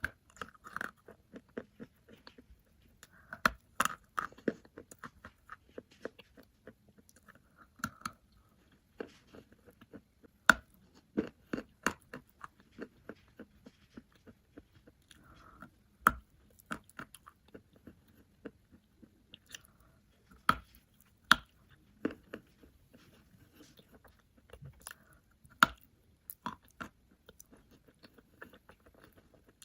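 Chalk being bitten and chewed close to the microphone: sharp snaps as pieces break off, followed by runs of dry crunching, over and over.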